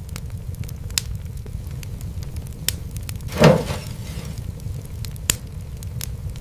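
Wood fire crackling: a steady low rumble of flames with scattered sharp pops, and one louder, longer pop about halfway through.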